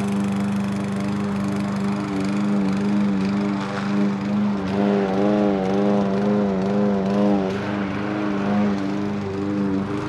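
Remote-control lawnmower's small gasoline engine running steadily with a constant drone. From about five seconds in, a wavering tone rises and falls for a couple of seconds before the sound settles back to steady.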